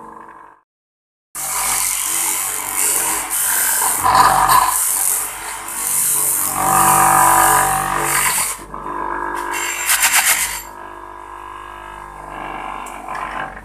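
Electric bench motor spinning a polishing wheel, with the metal spool of a PENN 950 SSm reel pressed against it. After a brief silence the loud hissing scrub cuts in. It lasts to about nine seconds in, and then the motor runs on more quietly, with one more short burst of rubbing near ten seconds. This is the polishing stage that smooths the spool wall after its salt corrosion was sanded away.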